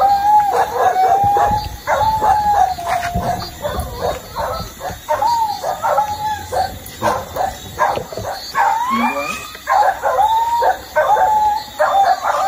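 Dog whining and yelping over and over: drawn-out high whines that arch up and fall away, broken by quick yelps a few times a second.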